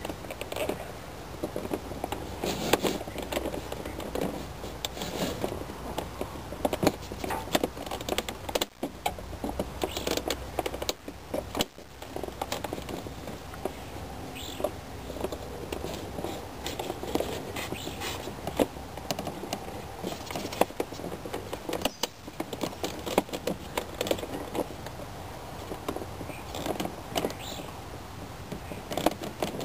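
Irregular clicks, scrapes and rattles of a knife blade working between the plastic retaining tabs of a 1993 Subaru Legacy's power window switch to pry it out of the door trim.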